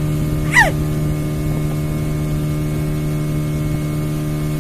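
Outboard motor of a small speedboat running steadily at speed, a constant drone with water and wind noise over it. About half a second in, one of the passengers gives a short yell that falls in pitch.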